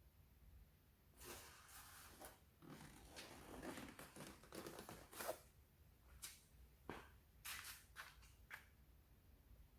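Faint rustling and tearing of packing material being handled, a few seconds of continuous crinkling and scraping, then several short separate rustles and taps.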